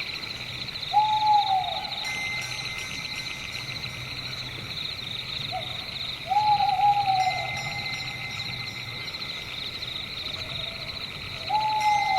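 An owl hooting three times, about five seconds apart, each hoot a falling call, over a steady, pulsing chorus of crickets.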